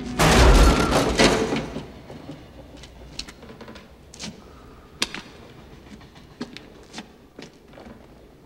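A loud crash with a heavy low thud that dies away over about a second and a half. Then a few scattered footsteps and small clicks on a hard floor.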